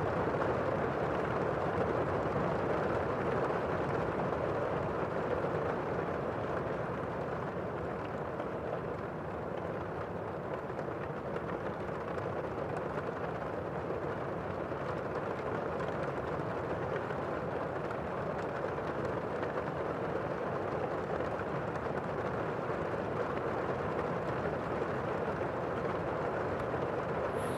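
Steady, muffled rain ambience, an even rushing noise with no breaks.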